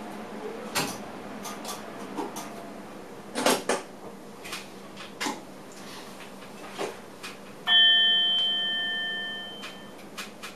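A single bell-like chime in a train driver's cab, struck suddenly and ringing down over about two seconds. Before it come scattered clicks and knocks, the loudest a quick pair in the middle.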